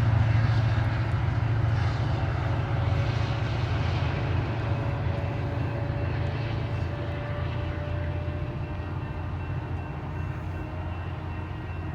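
Diesel locomotive of a FrontRunner commuter train running with a heavy low rumble that slowly fades over the seconds, a faint steady tone sounding above it.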